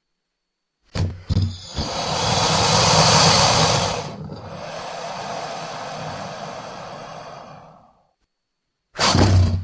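American crocodile hissing. A couple of short low sounds about a second in, then a long breathy hiss that swells, eases off about halfway and fades out. A loud, deep burst starts near the end.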